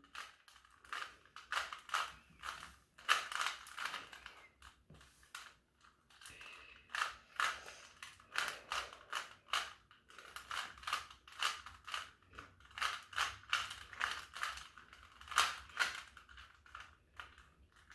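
Rubik's cube layers being turned by hand: irregular runs of short plastic clicks and clacks.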